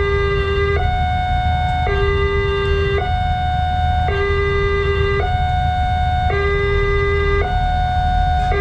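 Railway level-crossing warning siren sounding a steady two-tone hi-lo wail, a higher and a lower tone alternating, each held about a second. A low rumble runs underneath.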